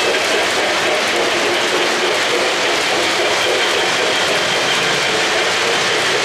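O-gauge three-rail model freight train rolling past close by, its metal wheels clattering steadily over the track.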